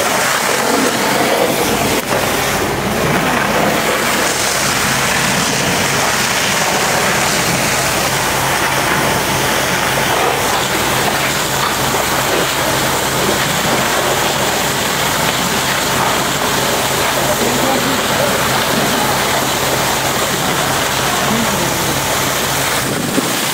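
Fire hoses spraying water streams, a loud steady rushing hiss, over the steady hum of fire apparatus engines running. The sound changes abruptly about two seconds in and again near the end.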